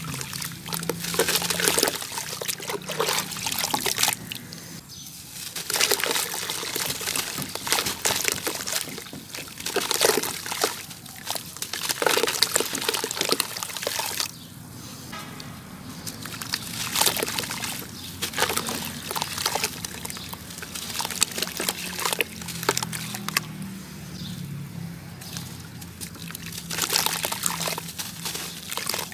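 Dry cement-sand lumps crushed and crumbled by hand over a bucket: gritty crunching, and powder and grit pouring and trickling back in. It comes in repeated bursts with short lulls.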